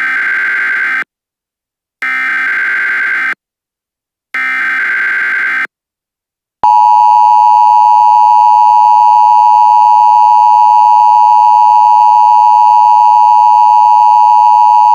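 Emergency Alert System tones. Three short bursts of digital SAME header data about two seconds apart, then, about six and a half seconds in, the steady, loud two-tone EAS attention signal starts and holds.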